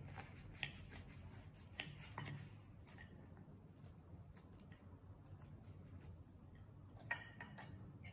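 Knife and fork cutting through a flaky almond croissant on a plate: soft crackling crunches of the pastry with a few light clicks of cutlery, the sharpest about seven seconds in.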